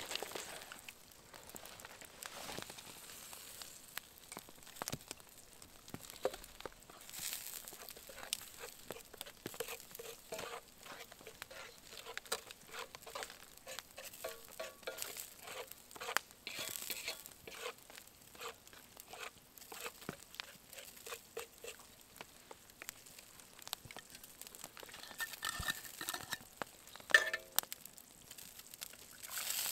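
Food frying in a pan over an open campfire: a light sizzle with a dense run of small crackles and the scrape of a utensil stirring in the pan. A sharp clink stands out near the end.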